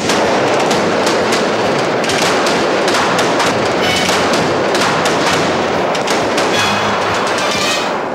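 Rapid gunfire with bullet hits and ricochets: a dense crackle of sharp shots that eases off near the end.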